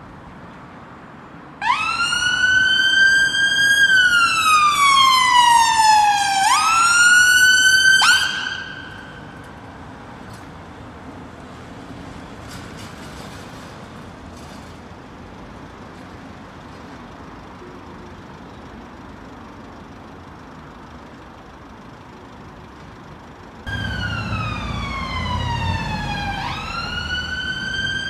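Scottish Ambulance Service emergency vehicle siren on wail, each cycle rising quickly, holding, then sliding slowly down, for about six seconds before it stops abruptly. A low street background follows for about fifteen seconds, then a siren on the same wail starts suddenly again near the end, over a low rumble of traffic.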